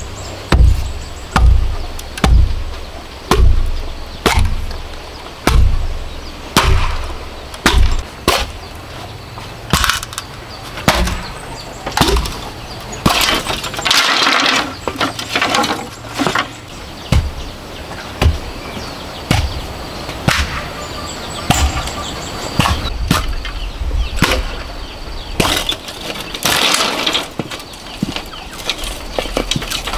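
Hammer blows on a bamboo post, about one a second for the first eight seconds, then bamboo cracking and splintering as it is split into strips, with scattered sharp knocks.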